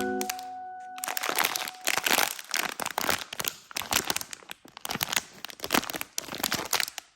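Blind-box packaging being opened by hand: a plastic wrapper crinkling and crackling in quick, irregular bursts, starting about a second in.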